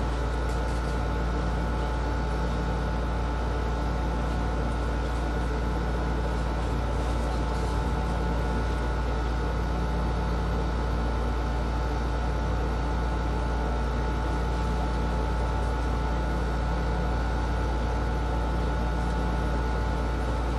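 A steady machine hum with a deep low drone and a couple of thin, steady whining tones, unchanging throughout.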